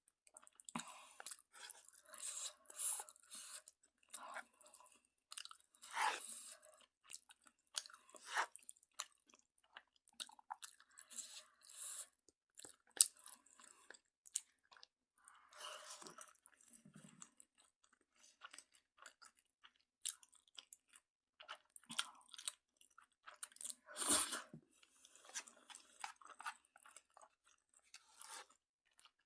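A person chewing and eating noodles close to the microphone: a run of short clicks and crackly mouth sounds. There is one louder bump about three quarters of the way through.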